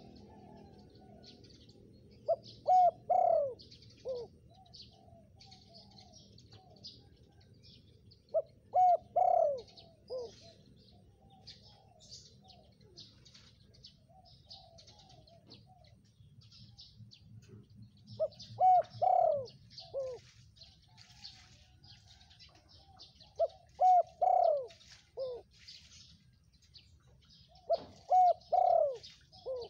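Spotted dove cooing: five phrases, each a short note, two loud drawn-out coos and a lower closing note, repeated about every five seconds. Small birds chirp faintly and high-pitched between the phrases.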